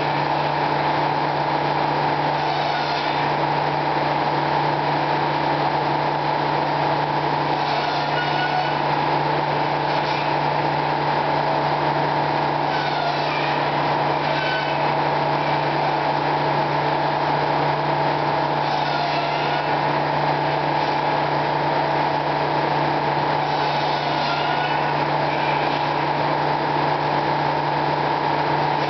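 Sawmill machinery running steadily, a constant mechanical hum and drone, with brief higher squeaks and rasps every few seconds.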